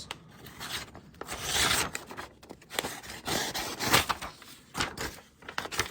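A dull knife blade rubbing and scraping in uneven strokes against the material it is being tested on, failing to cut, with a few sharp clicks.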